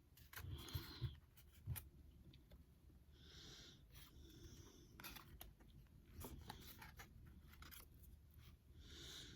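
Faint handling of Pokémon trading cards: soft rustles and light clicks as the cards are slid and flicked, with a few slightly louder knocks about a second in.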